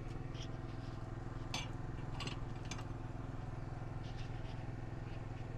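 Portable generator running steadily with an even low hum. A few faint metallic ticks come about a second and a half to three seconds in.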